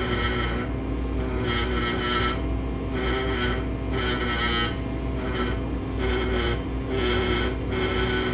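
Pneumatic air scribe buzzing in short bursts of about half a second, a little over once a second, as it chips stone matrix away from fossil turtle bone. A steady low hum from running machinery lies underneath.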